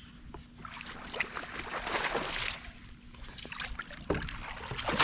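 Water splashing and trickling at the side of a kayak while a hooked bass is fought and landed, with scattered sharp knocks, loudest about two seconds in and again near the end.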